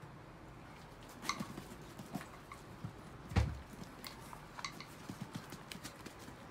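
Irregular light clicks and taps from a group of Chihuahuas walking about and eating from plastic food bowls, with one louder knock about three and a half seconds in.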